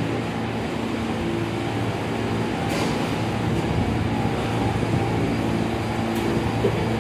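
New York City subway train rolling slowly along the platform, a steady hum of motors and wheels on rail with one sharp click about three seconds in.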